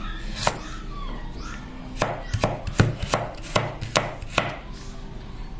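Cleaver chopping carrot on a wooden cutting board: one chop near the start, then from about two seconds in a steady run of chops, a little more than two a second.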